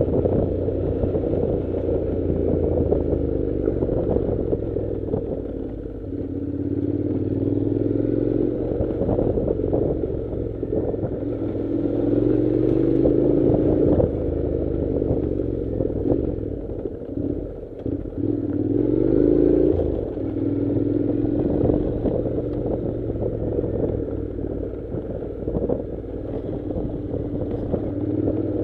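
Honda NC700 motorcycle's parallel-twin engine pulling along a rough dirt track, the revs rising and falling several times, with knocks and rattles from the bumpy surface.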